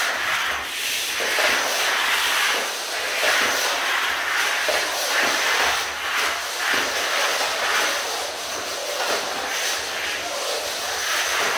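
A simple electromagnetic train (a battery with neodymium magnets on its ends) running through a long bare copper and aluminium wire coil. The magnets brush along the coil turns in a continuous scraping hiss that rises and falls in loudness.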